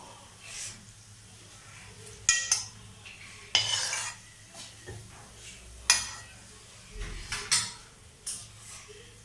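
Steel spoon knocking and scraping against an aluminium kadai of hot oil as a gulab jamun is turned and lifted out, a handful of sharp clinks and one longer scrape, over a faint frying sizzle.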